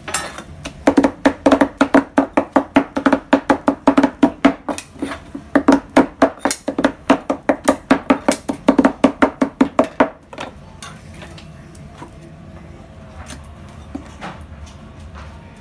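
Knives chopping grilled kokoreç on a steel griddle: rapid, even strikes, each with a short metallic ring. The chopping stops about ten seconds in, leaving a few light clicks of tongs and knife on the plate.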